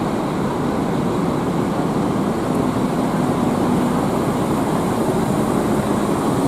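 Large coach bus's diesel engine running, a steady even rumble with no sharp events.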